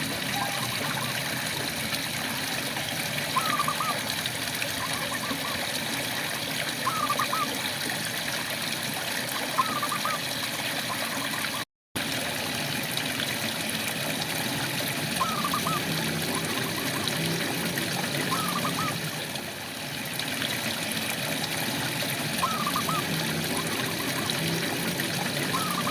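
Steady rain falling, with a frog giving short, repeated chirping calls about every three seconds. The sound cuts out completely for a moment about twelve seconds in.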